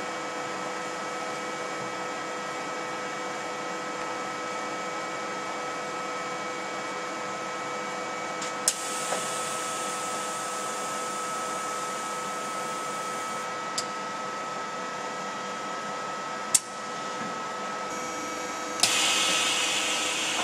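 Okuma LB 200-6 CNC lathe powered up and standing by, giving a steady machine hum with several held tones. A few sharp clicks come through, and near the end a louder hiss sets in with a click.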